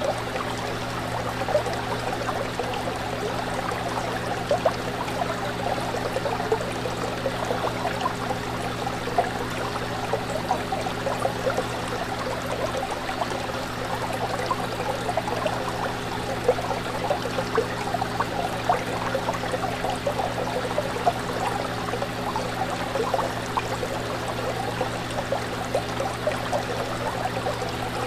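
Fish tank water bubbling and trickling steadily, with a steady low hum underneath.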